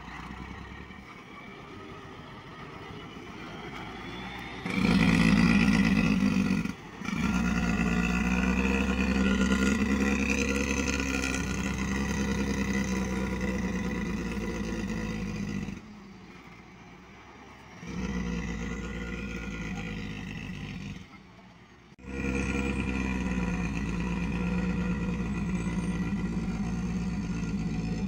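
Engine of a flatbed truck loaded with pine logs running steadily under load. The sound drops away and returns abruptly several times, about 5, 16 and 22 seconds in.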